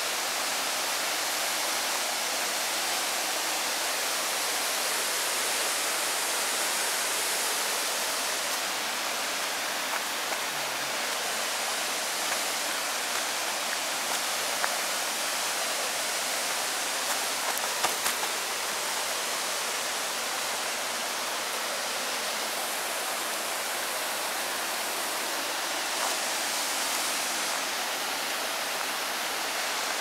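Steady rush of a waterfall and its stream, an even unbroken roar of falling water, with a few faint clicks around the middle.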